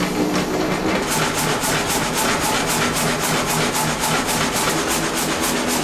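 Sawmill saw with thin 1.6 mm blades cutting through a large log, running with a fast, even beat of about four or five a second over a steady machine hum.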